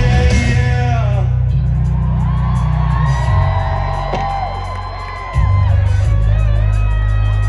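Live rock music played loud through a festival sound system, with heavy bass and a singing voice holding long notes. The bass thins and the level sinks for a couple of seconds, then the full band comes back in suddenly about five seconds in.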